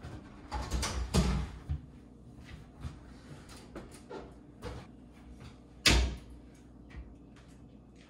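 Knocks and handling noises inside a wooden kitchen cabinet: a cluster of knocks and rustles in the first two seconds, a few light ticks, and one sharp knock about six seconds in.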